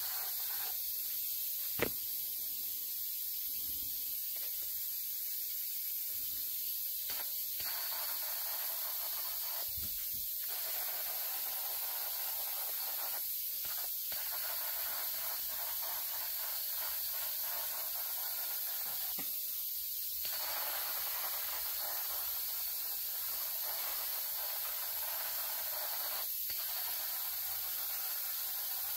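Powder coating gun blowing powder with a steady air hiss, broken by a few short pauses. There is a single sharp click about two seconds in.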